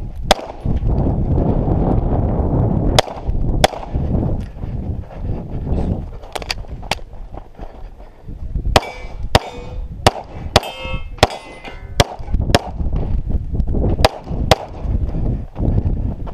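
Pistol shots fired at irregular intervals, some in quick pairs, with a metallic ringing about ten seconds in, like hit steel targets ringing.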